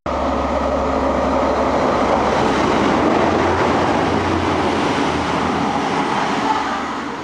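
Class 185 diesel multiple unit passing at speed close by, a steady engine drone mixed with the rush of wheels on rail, fading away near the end.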